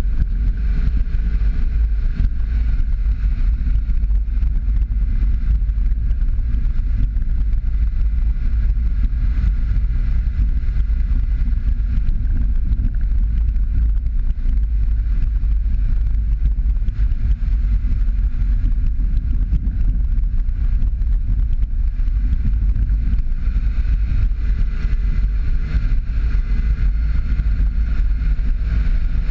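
Steady road noise of a Jeep Patriot driving a dirt road: a deep, even rumble of engine and tyres on gravel, with wind on the microphone.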